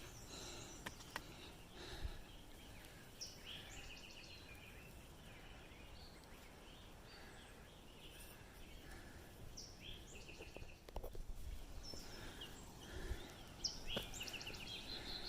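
Faint songbird singing: a short phrase of quick, evenly repeated high notes, given about three times over quiet outdoor background, with a few faint clicks.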